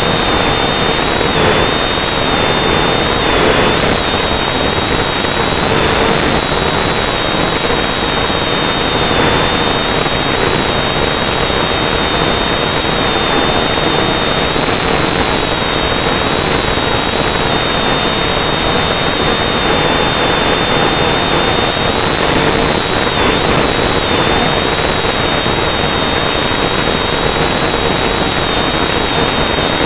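Quadcopter's electric motors and propellers running steadily, heard through the camera on the drone itself: a loud, even whine with a high tone that wavers slightly in pitch, over constant noise.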